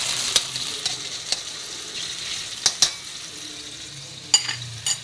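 Shallots, garlic, dried shrimp and mustard seeds sizzling in hot oil in a wok. A metal spatula clicks and scrapes against the wok several times. The sizzle slowly dies down.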